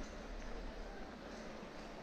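Outdoor city street ambience: a steady hiss of background noise over a low rumble, with no single sound standing out.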